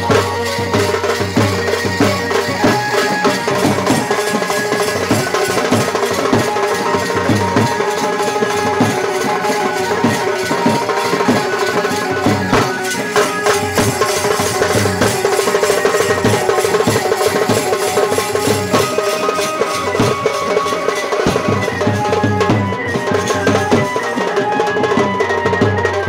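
Folk dance music with a large drum beaten with a stick in a fast, steady rhythm, and a melody held over it.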